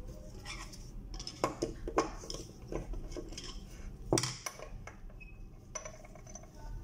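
Metal clinks and knocks as an aluminium lamp-holder block is handled and set against the bench while the old xenon lamp is worked out of it. There are about five separate strikes, the loudest a little after four seconds in.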